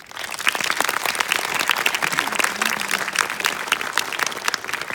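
Audience applauding: dense clapping from many hands that starts suddenly and keeps up steadily.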